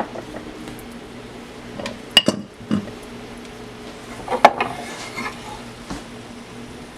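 A few sharp clinks of a utensil against a plate or dish: two close together about two seconds in, another shortly after, and the loudest about four and a half seconds in. A faint steady hum runs underneath.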